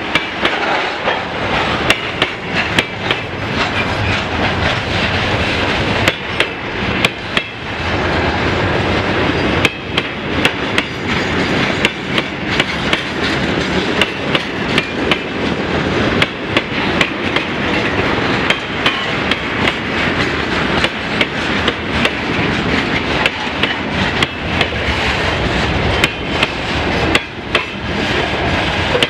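Freight wagons rolling through the station: a steady rumble with many sharp metallic knocks and clanks from the wheels and couplings.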